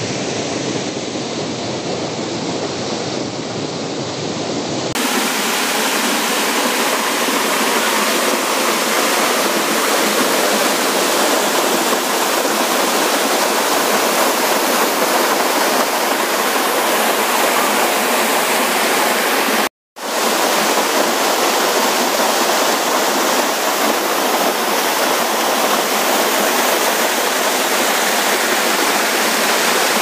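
Waterfall pouring over rock ledges into a plunge pool: a steady, loud rush of falling water. The sound changes abruptly about five seconds in and cuts out for an instant about two-thirds of the way through.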